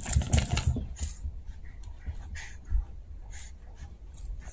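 Two Chihuahua puppies rummaging in a pile of plush, rope and rubber toys on carpet: irregular rustling and scuffling, busiest in the first second, with a soft thump a little before three seconds in.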